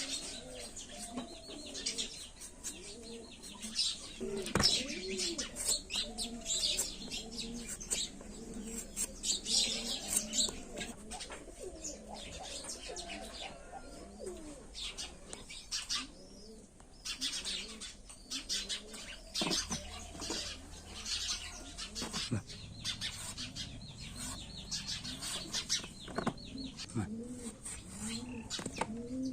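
Birds calling: many short, curved low calls repeat throughout under high chirps, with scattered sharp clicks.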